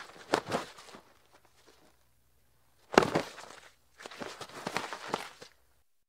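A body falling in snow. A few crunches of snow in the first second, a heavy thud about three seconds in, then a second and a half of crunching scuffle as the body rolls and shifts in the snow.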